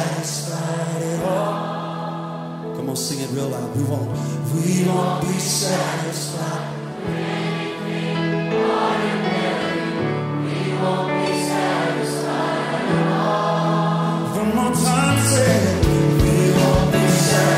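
Contemporary Christian worship song, with a choir singing over a band with bass and cymbals.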